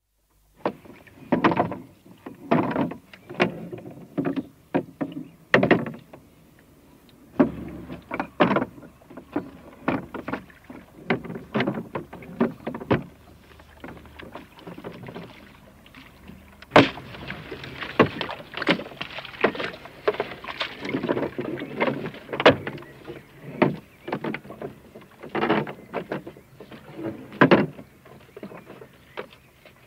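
Small rowing boat being boarded and gear moved about in it: irregular knocks, thumps and clunks against the hull, some sharp, spaced unevenly.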